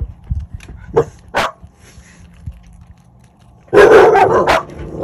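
Dogs barking: two single sharp barks about a second in, then a loud rapid flurry of barks near the end, as they are held indoors with calves in view outside.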